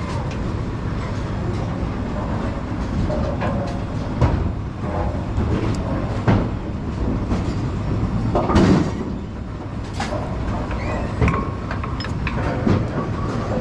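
A steady mechanical rumble runs throughout, with scattered metal clanks and knocks: one about four seconds in, one about six seconds in, and a louder cluster a little past eight seconds. These fit metal parts and tools being handled at a Brunswick pinsetter.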